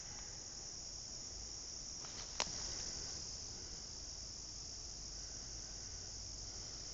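Steady, high-pitched chorus of insects trilling, typical of crickets. There is one sharp click about two and a half seconds in.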